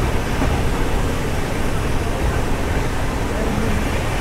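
Steady running noise of a moving express passenger train heard from inside the coach: wheels on the rails and the rush of air, with no clear beats or breaks.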